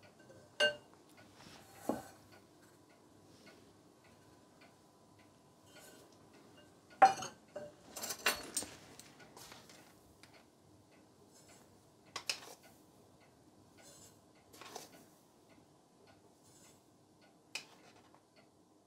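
Scattered clinks and knocks of kitchen utensils against a ceramic mixing bowl: a metal measuring cup, a wire whisk and a tin handled over the bowl while flour and yeast are measured in. The sounds come as short separate taps with quiet gaps between, the loudest about seven seconds in and a quick run of them just after.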